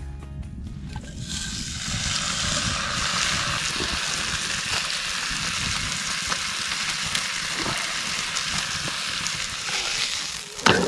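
Steak sizzling in a frying pan on a grate over a campfire, a steady hiss. Near the end there is one sharp clank as tongs turn the steak in the pan.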